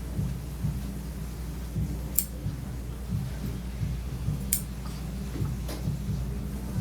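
Grooming shears snipping through dog hair: three sharp snips, about a second or two apart, over a steady low hum.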